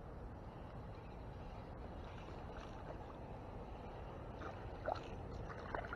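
A small fish being reeled in on a spinning rod, splashing at the water's surface a few times near the end, over a steady low rumble.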